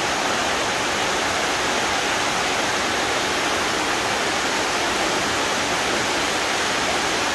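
Steady, even rushing of water, without a break.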